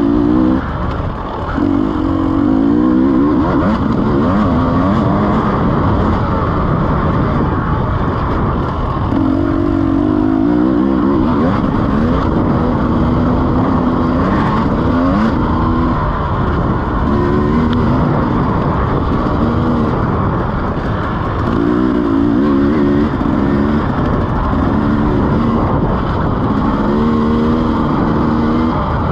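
KTM EXC 300 dirt bike's single-cylinder two-stroke engine under way on a trail, revving up and down with the throttle in repeated bursts, its pitch rising and falling.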